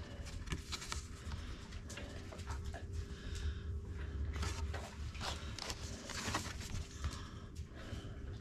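Labrador retriever panting in irregular breaths close to the microphone, with greeting-card paper rustling as the cards are handled and opened.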